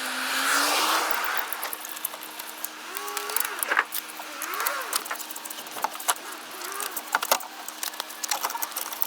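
Scattered light metallic clicks and clinks, like tools or parts being handled, over a steady low hum.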